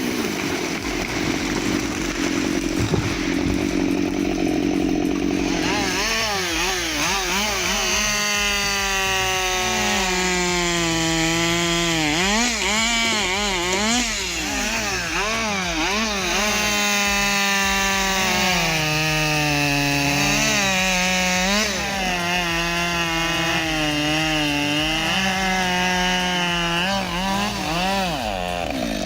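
Two-stroke chainsaw cutting wood. It runs steadily at first, then from about six seconds in the engine pitch keeps rising and falling as the saw revs up and bogs down in the cut.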